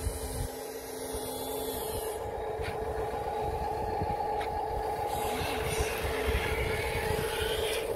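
Huina RC dump truck's small electric drive motor and gearbox whining steadily as the loaded truck drives through loose dirt, over an uneven low rumble.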